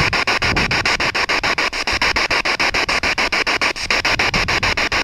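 Ghost-hunting spirit box (radio sweep device) scanning through stations: a continuous hiss of static chopped into rapid, even pulses, about ten a second.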